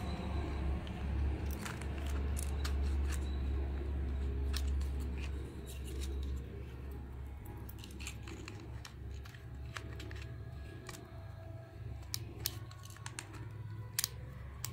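Scattered sharp clicks and snips of small hand tools and plastic toy parts being worked by hand, over a low rumble that fades about six seconds in.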